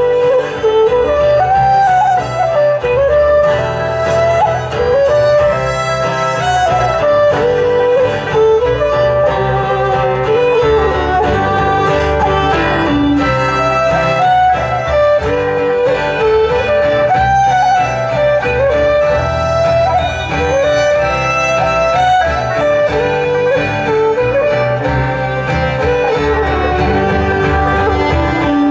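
Live instrumental fiddle tune: a quick-moving fiddle melody over steadily strummed guitar chords, played without a break.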